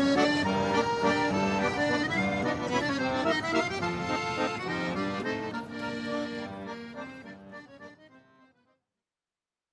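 Accordion music with a traditional, lilting melody, fading out and stopping about a second before the end.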